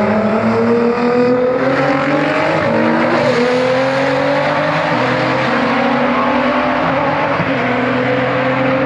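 A heavily tuned twin-turbo R35 Nissan GT-R and a Porsche 991 Turbo S accelerating hard side by side in a roll race. Their engine notes climb in pitch and drop back at each upshift, and the GT-R is the louder of the two.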